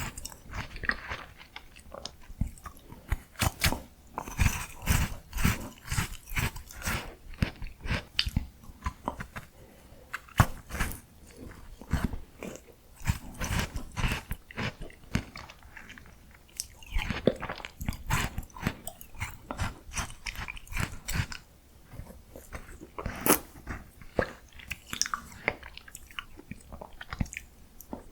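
A person biting and chewing miniature ice cream, with a steady run of irregular sharp, crisp clicks and crackles from the bites and chewing.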